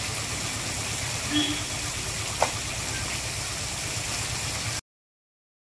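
Water showering down from an overhead spray onto an elephant's hide and the wet ground, a steady hiss, with one sharp click about two and a half seconds in. The sound cuts off abruptly near the end.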